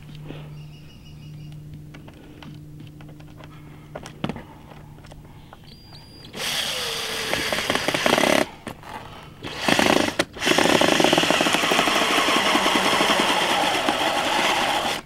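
DeWalt cordless drill driving screws into the dog house's panels. About six seconds in it starts with its pitch dropping under load, then runs in two short bursts and finishes with a long steady run. Before that there is only a faint low hum and a few light clicks.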